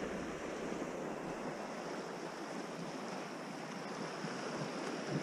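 A fast, swollen creek rushing over rapids: a steady rushing of turbulent water.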